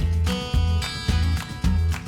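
Background music with a steady bass beat and a strummed acoustic guitar.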